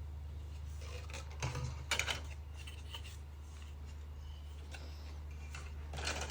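Faint handling of a plastic model-kit car body: light rubbing and a few small clicks, the clearest about two seconds in, over a steady low hum.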